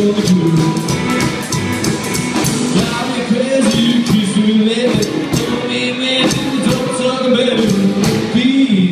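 Live rockabilly trio playing: hollow-body electric guitar, upright bass and drum kit, with a steady drum beat.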